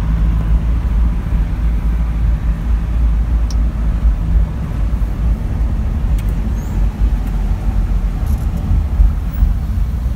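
Steady low rumble of a car's engine and tyres, heard from inside the cabin while driving in traffic.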